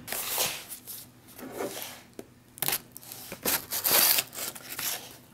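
A knife blade slitting the packing tape and wrapping of a cardboard parcel: a run of uneven scraping and tearing strokes, loudest a little past the middle.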